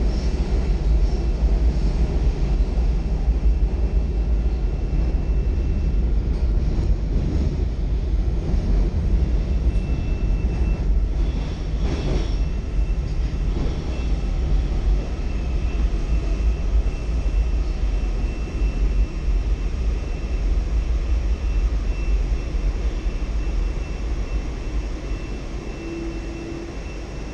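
Washington Metro 7000-series railcar heard from inside the car running through a tunnel: a loud, steady rumble of wheels on rail with a thin high whine, and a single clunk partway through. The rumble eases near the end as the train slows into the station.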